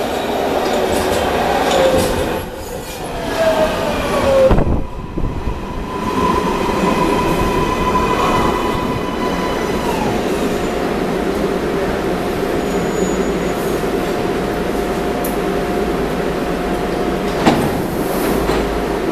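MARTA rapid-transit train pulling into the station, its motor whine falling in pitch as it brakes, then standing with a steady electrical hum that steps down in pitch partway through. A single sharp knock near the end as the doors open.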